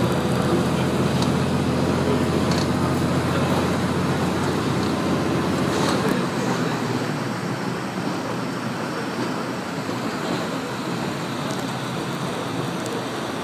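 KiHa 47 diesel railcar heard from inside the cabin, its diesel engine running with steady wheel and rail noise. About halfway through, the low engine note falls away and the level drops, leaving mainly the running noise of the wheels on the track.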